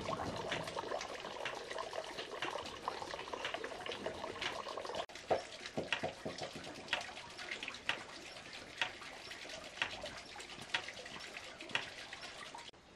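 Liquid trickling and pouring with small splashes and clicks. About five seconds in it gives way to sparser single light knocks, roughly one a second.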